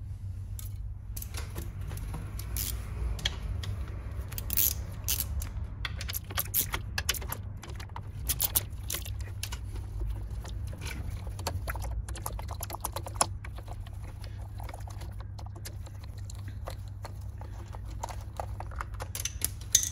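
Irregular small metallic clicks and rattles as a nut driver loosens and removes the intake manifold bolts on a two-stroke scooter engine, over a steady low hum.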